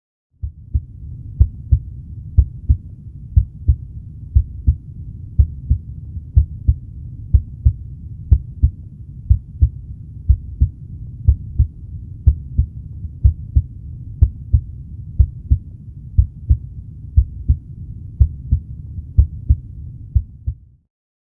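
Heart sounds heard through a stethoscope over the tricuspid valve area at the base of the xiphoid process: the first and second heart tones as a lub-dub pair, repeating about once a second over a steady low rumble.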